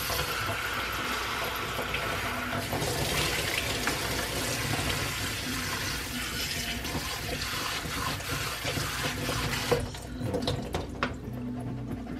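Kitchen tap running water steadily through konjac rice in a fine-mesh strainer and splashing into a stainless steel sink. The water cuts off about ten seconds in, followed by a few light taps as the strainer is shaken to drain.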